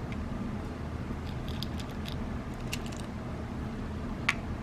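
Light clicks and ticks of small lead airgun pellets being picked up and set down on a digital pocket scale's steel weighing pan, with one sharper tick about four seconds in, over a steady low background hum.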